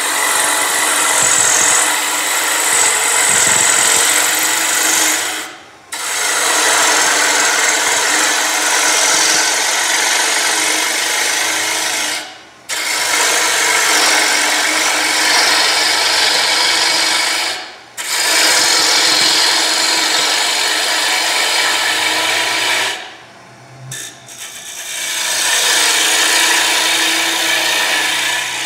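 Turning tool cutting a spinning wooden blank on a wood lathe, a loud continuous shaving noise. It comes in five long passes broken by four brief pauses where the tool comes off the wood, the last pause about a second long.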